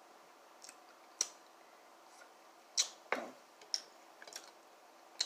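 Mouth smacking while chewing food: a series of short, sharp wet smacks and clicks, irregularly spaced.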